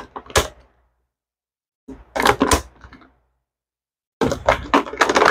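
Stiff clear plastic blister packaging crackling and clicking as it is handled and pried open, in three bursts: briefly at the start, around two seconds in, and again from about four seconds in.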